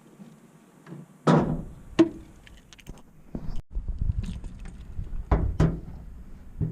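A series of knocks, thunks and clicks, with a low rumbling handling noise in the second half.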